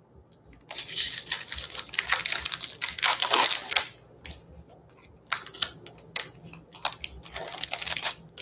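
Foil booster pack wrapper crinkling and crackling as it is handled, in two dense stretches with scattered clicks between, and torn open near the end.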